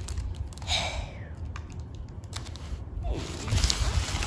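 A child's fingers picking and scratching at cardboard packaging, with scattered small clicks and scrapes. A short breathy vocal sound, like a gasp, comes about a second in, and a faint voice near the end.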